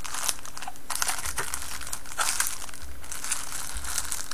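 Crinkling and rustling of a bag being handled and rummaged through, with irregular crackles as electronic parts are moved about inside it.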